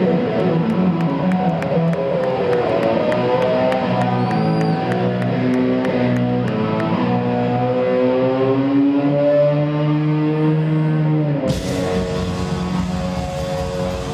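Live rock band with an electric guitar lead from a Les Paul-style solid-body guitar, playing long sustained notes with slow bends, one held note rising gradually for several seconds. About three quarters of the way through, the sound abruptly turns fuller and brighter.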